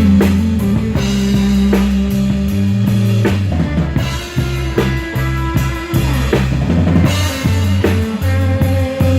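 Live rock band playing an instrumental passage: drum kit with kick and snare hits and rimshots over electric bass notes and guitar, with no singing.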